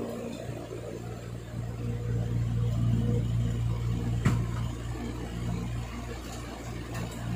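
Steady low mechanical hum, like a motor running, swelling a little for a couple of seconds and then easing back, with one sharp click about four seconds in.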